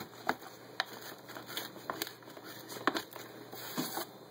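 Hand-rolling cigarettes from loose tobacco in a tray: soft rustling and crinkling, with several scattered light taps and clicks.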